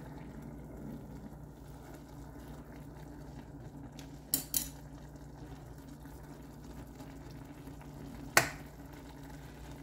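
A saucepan of instant noodle soup simmering on the stove over a steady low hum, with two light clicks about four and a half seconds in and a sharper click near eight and a half seconds.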